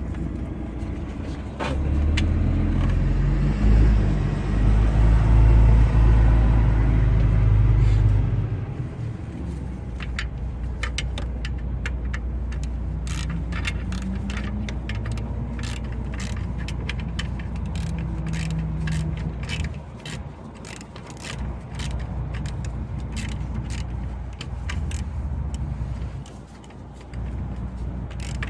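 Hand tools clicking and clinking on metal as the alternator's mounting bolts are worked loose, a rapid run of sharp clicks through most of the second half. Under it a low rumble that is loudest for several seconds early on, then settles into a steady low drone.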